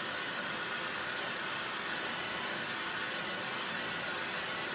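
Handheld hair dryer blowing steadily over a wet watercolour wash to dry it: an even rush of air with a faint steady motor hum.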